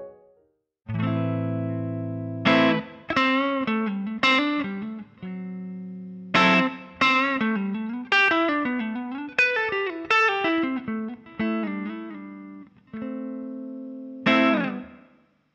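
Electric guitar played through an overdrive pedal and an amplifier. It opens on a held low note, plays a phrase of picked single notes with string bends, and ends on a final note that rings out. This is the recorded original amp tone that the neural model is trained to copy.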